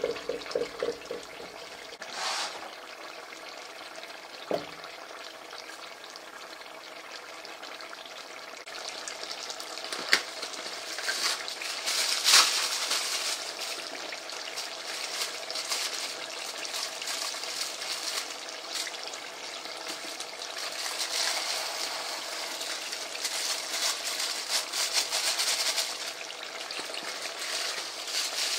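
Chicken pieces sizzling in hot oil and sauce in a large stovetop pot: a steady hiss that grows louder about a third of the way in, with scattered crackles and pops.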